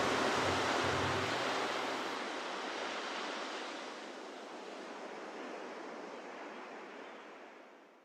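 Ocean surf: a steady rushing wash of waves that fades gradually to nothing at the end. The last held notes of the song die away under it in the first second or two.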